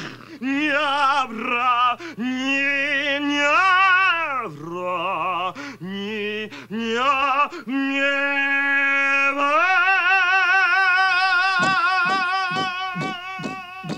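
Wordless vocalising that stands in for dialogue: voices warble and glide up and down in pitch with heavy vibrato, in short, broken phrases. Then one long wavering note is held, and a quick run of short clicks sounds near the end.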